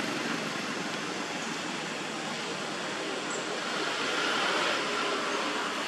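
Steady rushing background noise with no distinct events, a little louder about four seconds in.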